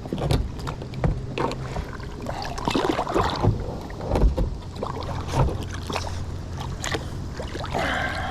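Irregular knocks and clunks with water sounds as a heavy, muddy magnet-fishing find is handled on a kayak.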